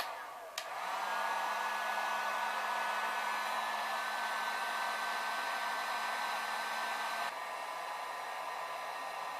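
Heat gun running on its low setting, blowing steadily with a whine, to soften a bent screen-frame tab. It dips briefly with a click about half a second in, then runs steady, a little quieter from about seven seconds on.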